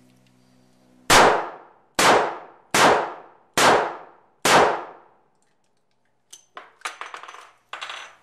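Five shots from a Smith & Wesson 637 snub-nose .38 Special revolver, fired about one a second, each trailing off in a ringing echo. Then metallic clicks and clatter as the cylinder is opened and the empty cases are punched out, an ejection that fails to clear all the shells.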